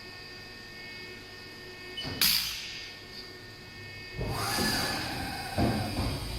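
Steady hum of a CNC vertical machining center, with a short burst of hissing noise about two seconds in and a longer, louder stretch of noise from about four seconds in.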